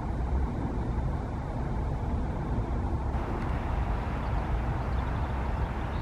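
GB Railfreight Class 66 diesel locomotive, its two-stroke V12 engine running as it approaches slowly with a train in tow: a steady low rumble.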